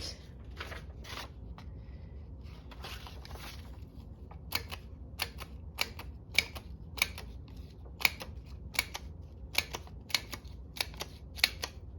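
A hand paper-cutting tool working through white paper to make many small eyes. A few soft strokes come first; from about four seconds in, it clicks sharply and regularly, about two times a second.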